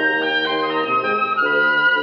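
Woodwind trio of flute, oboe and bassoon playing held notes together, the chord changing every half second or so.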